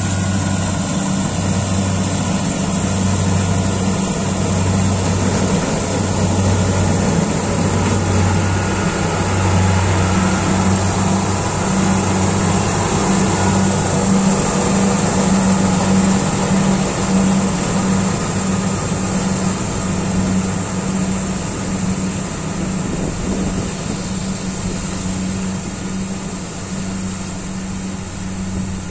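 Kubota DC-68G combine harvester running under load while cutting and threshing rice: a steady low engine hum over a wash of machine noise. It is loudest as it passes close about halfway through and eases off as it moves away.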